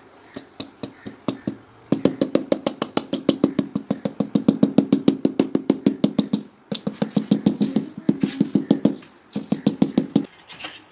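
Rubber mallet tapping a ceramic wall tile to set it in place: a few single knocks, then about two seconds in rapid runs of quick taps, about six a second, with short pauses between runs.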